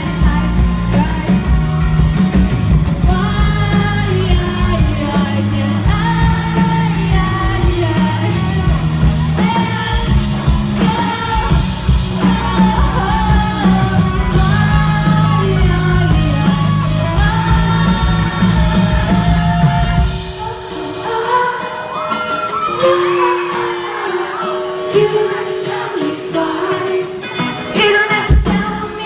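Pop-rock band playing live with lead singing over bass and drums, heard in a large hall from the audience. About 20 seconds in, the bass and drums drop out, leaving the voices over lighter backing.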